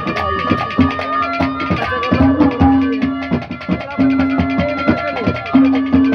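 Instrumental interlude of Haryanvi ragni music: fast hand-drum strokes in a steady rhythm with held melody notes over them.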